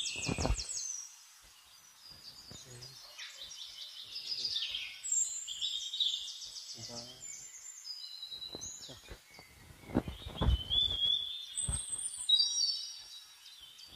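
Several forest birds singing and calling at once: overlapping high chirps, whistled notes and rapid trills. A few short low thumps come near the start and again about ten seconds in.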